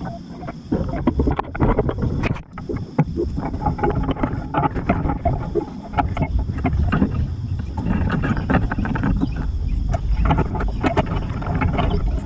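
Ivy vines and leaves rustling and crackling as they are pulled and handled against a chain-link fence, many short irregular crackles, over a steady low rumble of wind on the microphone.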